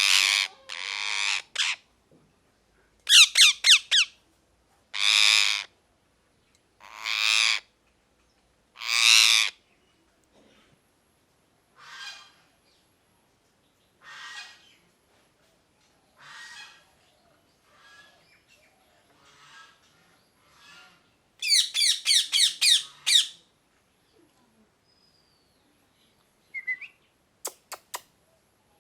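Ringneck parrot screeching: loud, harsh calls about every two seconds, some broken into quick stuttering runs. The calls turn softer midway, then a loud burst of rapid screeches follows, and a few faint clicks come near the end.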